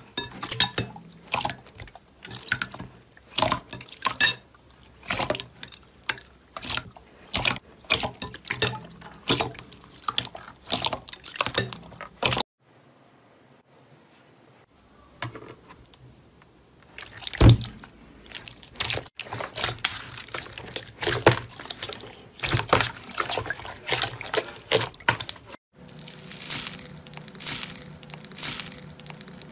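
Hands squishing and poking slime: a long string of short wet squelches, clicks and pops. There is a brief quiet gap about halfway, and near the end the crackle of slime and foam beads (floam) being pressed, over a faint steady hum.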